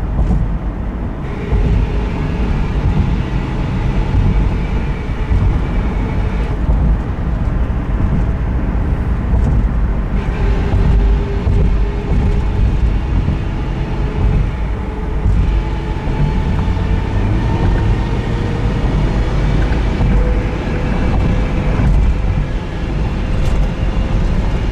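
2001 Subaru Forester on the move: steady road and drivetrain rumble with a grinding whine that comes and goes in stretches of several seconds, its pitch slowly rising. The noise appears whenever the gas pedal is pressed, even when coasting, and could be the transmission or a bearing.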